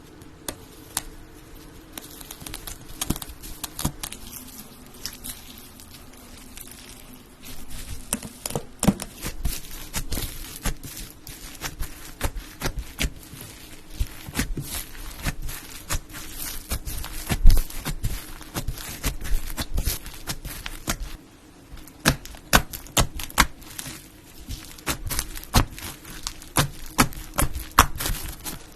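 Hands squishing and poking slime: a stream of sharp, irregular clicks and pops, busier after the first few seconds, over a faint steady hum.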